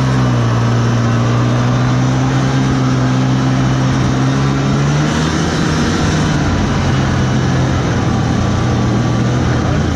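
Snowmobile engine running steadily at cruising speed under a broad rushing hiss of track and wind. Its pitch climbs a little about five seconds in, then settles back.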